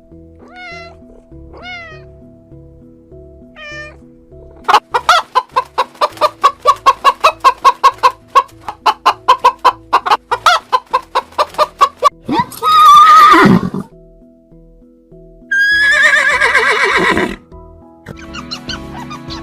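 A few short cat meows, then a chicken's rapid clucking at about four clucks a second for several seconds, then two loud drawn-out calls, all over background music.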